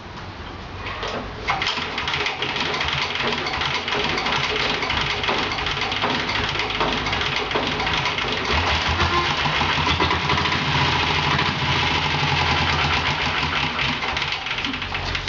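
Diesel engine of a diesel-converted Royal Enfield Bullet motorcycle running, getting louder about eight seconds in and dying away near the end.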